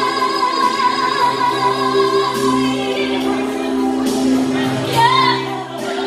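A woman singing into a handheld microphone over a backing track played through a PA: she holds one long note for about two seconds, then sings a rising phrase with vibrato near the end, over sustained accompaniment chords.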